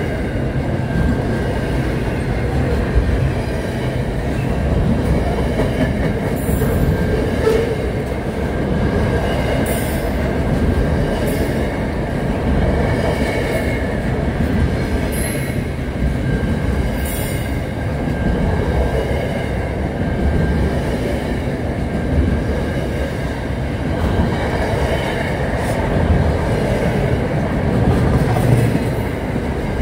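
Double-stack container freight train rolling past at close range: a steady rumble of steel wheels on the rails, with brief high-pitched wheel screeches every few seconds.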